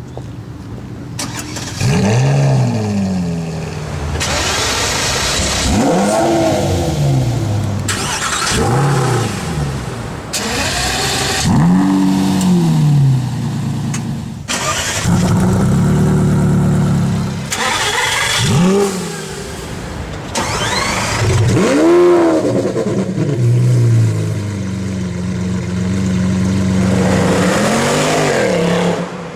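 Supercar engines revved hard again and again, each rev climbing steeply in pitch and falling away, in a string of short clips with abrupt cuts between them.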